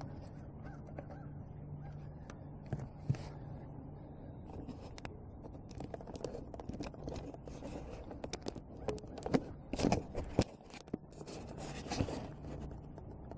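Rustling, scraping and clicking of a handheld camera being picked up and moved, in a run of sharp knocks a few seconds before the end, over a faint low hum.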